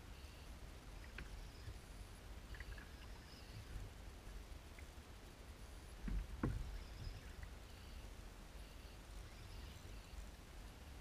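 Faint low rumble of wind and choppy water against a plastic kayak hull, with a few light ticks and one louder thump about six seconds in.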